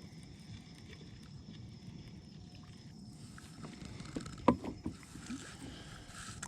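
Kayak on the water: a steady low rumble of wind and water, with a few sharp knocks a little past halfway through.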